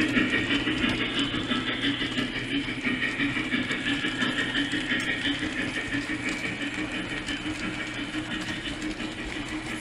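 O-gauge three-rail model trains running on tubular track: a steady motor hum with wheels clattering over the rails, slowly getting quieter as the train pulls away.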